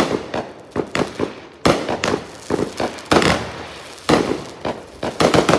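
Consumer fireworks going off: a dense, irregular string of sharp bangs and pops, several loud ones about a second apart, each with a short echo, and a quick cluster of blasts near the end.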